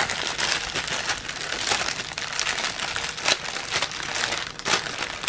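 Clear plastic packaging bag crinkling as hands work it open, a dense run of sharp crackles.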